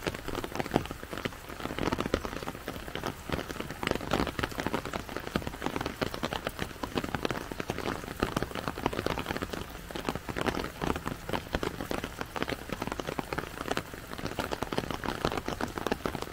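Steady rain, with a dense stream of drops ticking on an umbrella held close overhead.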